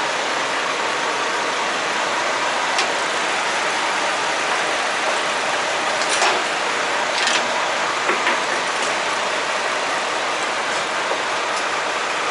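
Steady road and wind noise of a semi truck on the move, with a few sharp clicks and rattles in the middle.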